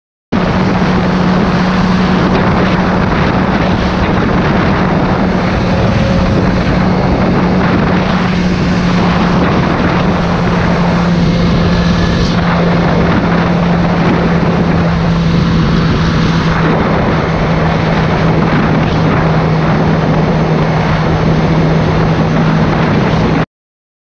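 BMW S1000RR sport bike running at steady highway speed, its engine drone easing slightly lower in pitch, under heavy wind rush on the onboard GoPro microphone. The sound cuts off abruptly near the end.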